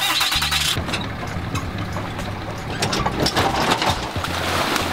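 Ram 3500 Heavy Duty pickup's engine running steadily at low speed as it reverses a boat trailer down a launch ramp.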